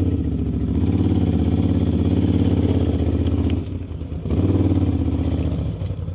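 ATV engine running steadily under throttle, easing off briefly about two-thirds of the way through and picking up again.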